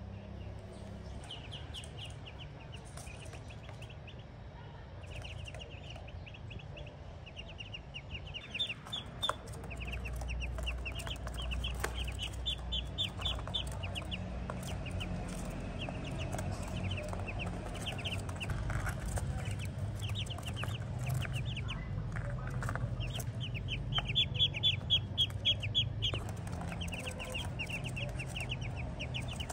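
Ducklings peeping: runs of short, high peeps repeated again and again, loudest a little past two-thirds of the way in.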